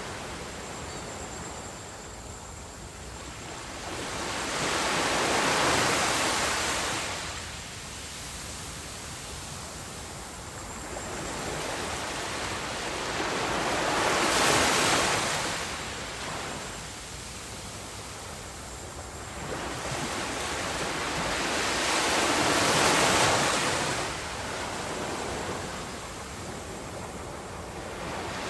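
Ocean surf on a beach: waves breaking and washing in, a swell of rushing noise about every eight or nine seconds with quieter stretches between.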